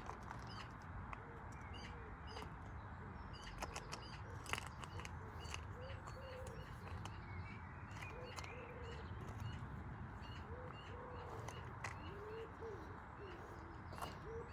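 Faint bird calls: short, low, arching notes repeating about once a second, with a few higher chirps and scattered faint clicks.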